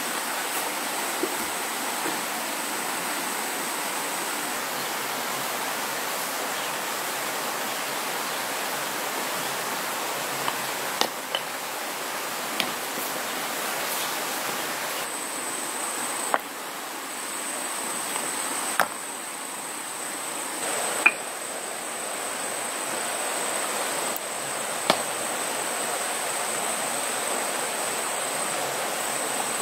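Stones knocking together in sharp single clacks, about half a dozen spread out, as rocks are set and stacked into a hearth. Under them runs a steady rush of flowing water, with a thin high insect whine.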